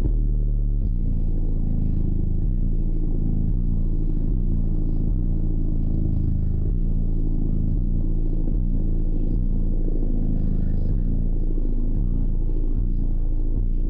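Three Skar EVL-15 subwoofers in a box tuned to 31 Hz, driven by an Audiopipe 3,000-watt amplifier, playing bass-heavy music loud inside the vehicle's cabin. Deep bass notes change every fraction of a second at a steady, high level.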